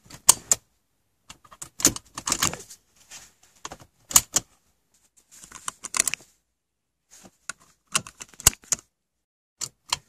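Seat belt buckle on a 2003 Honda Accord being latched and released repeatedly: sharp clicks of the latch with the rattle of the metal tongue, in separate clusters a second or two apart. The buckle is being cycled to test its freshly cleaned switch.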